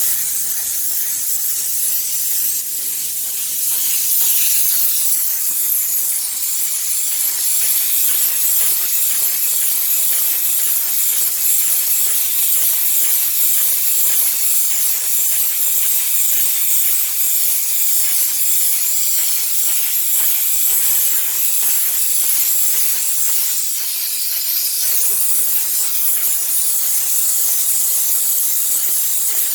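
Steam cleaner's jet hissing steadily as it blasts an air-conditioning unit clean, a loud high hiss that eases briefly twice.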